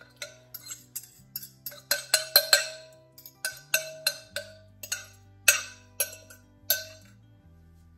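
Background music: light, percussive struck notes over a steady low bass line that changes pitch every second or so.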